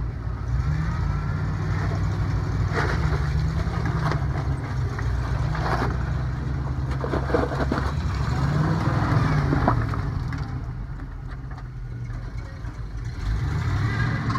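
Motor vehicle engine running while driven, its note rising and falling, with scattered knocks and rattles.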